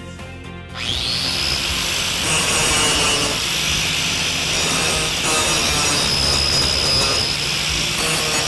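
Angle grinder switched on about a second in, its motor whining up to speed, then running steadily as the disc grinds protruding nail heads flush on the back of a plywood panel.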